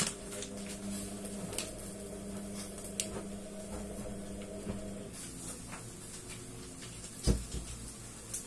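A steady low hum made of several tones, which shifts about five seconds in, with a few light clicks and a single thump near the end.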